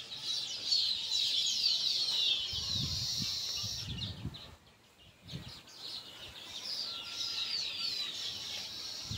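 Many small birds chirping at once, a dense chatter of short falling calls that drops out for about a second halfway through, with a few faint low rumbles in the middle.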